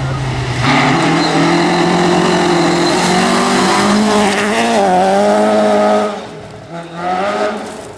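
Rally car engine running hard at high revs, its pitch dipping and climbing again about halfway through a gear change or lift, then dropping away sharply near the end as the car gets away from the listener.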